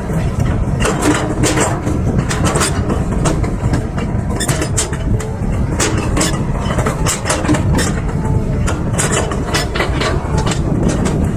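Excavator at work: its diesel engine runs steadily with frequent sharp metallic clanks and knocks throughout.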